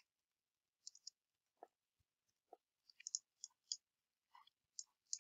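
Faint, scattered clicks of a computer mouse and keyboard, about a dozen short ticks, some in quick pairs.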